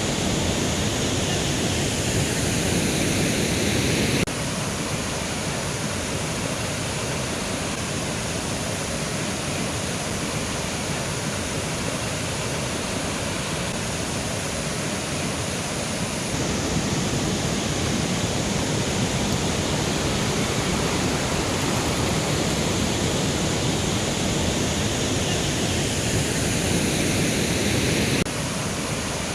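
A mountain river running over rocks, a steady loud rush of water. Its tone shifts abruptly about 4 seconds, 16 seconds and 28 seconds in.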